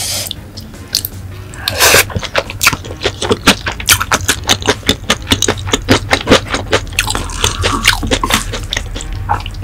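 Close-miked mouth chewing of spicy tteokbokki: a quick run of clicking mouth sounds, about three to four a second, from about two seconds in. It is preceded by two short rushing sounds.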